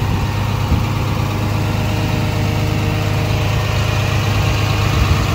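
Komatsu PC210LC-10 excavator's diesel engine and hydraulic pump running steadily, heard up close at the open side compartment.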